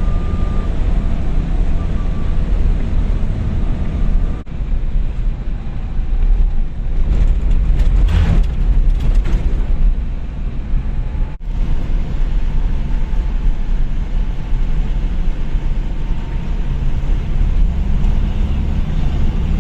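Two-wheel-drive Toyota HiLux driving on a dirt track, a steady low engine and road rumble. The sound drops out very briefly twice, and the engine note rises near the end.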